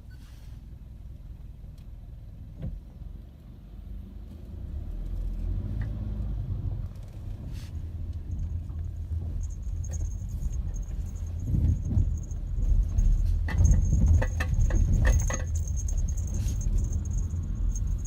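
A road vehicle passing over a railway level crossing. A low rumble builds a few seconds in and peaks with a quick run of knocks in the second half, with a faint steady high whine underneath.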